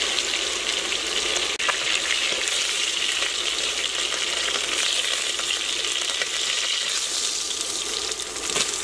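Chicken thighs frying in hot oil in a stainless steel pot: a steady sizzle with frequent small crackles, as the meat is browned on each side.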